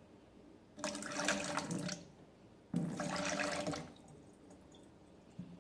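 Water running into a bowl in two short bursts, each just over a second long, as the bowl is partly filled for cooking instant ramen.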